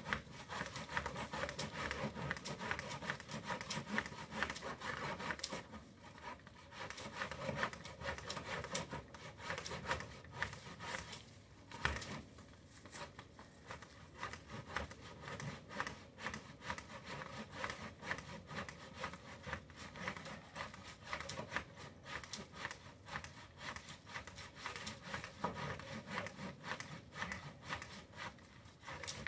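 Saw cutting through a woody oleander stem in repeated back-and-forth strokes, with a couple of brief pauses.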